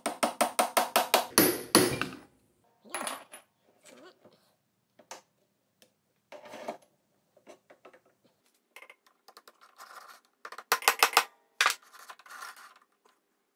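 Rapid light hammer taps on the steel drift wedge in a Hafco BD325 drill press spindle, driving out the chuck's taper arbor. Scattered metallic clinks follow as the steel chuck and arbor are handled, then another quick run of sharp clicks about eleven seconds in as the chuck is refitted.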